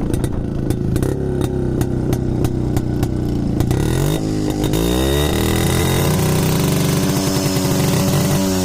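Jawa Yezdi motorcycle's two-stroke single-cylinder engine idling with sharp regular clicks. About four seconds in it is revved up and held at a higher speed.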